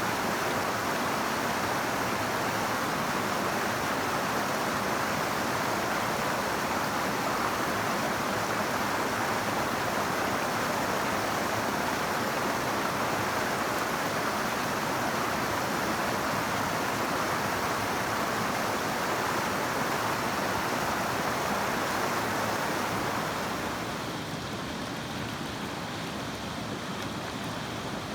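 River water flowing steadily, a continuous rushing hiss; about three quarters of the way through it becomes slightly quieter and duller.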